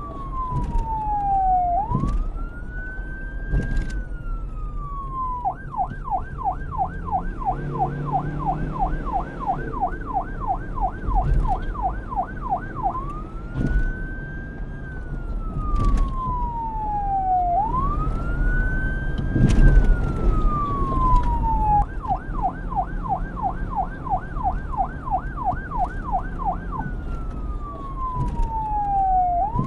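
Police car electronic siren switching between a slow wail, rising and falling over about two seconds each way, and a fast yelp warbling about three times a second, twice. A low rumble runs underneath, with a few short knocks.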